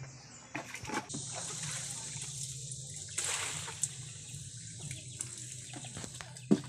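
Muddy water being bailed from a pit with a plastic bucket and poured out onto the ground, a splashing, hissing pour. A sharp knock comes near the end.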